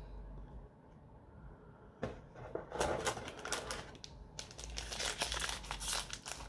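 Crinkling and rustling of plastic and foil packaging as a trading-card booster pack is taken from its bag and opened. It starts about two seconds in, after a quiet opening, and goes on in irregular crackles with a brief pause about four seconds in.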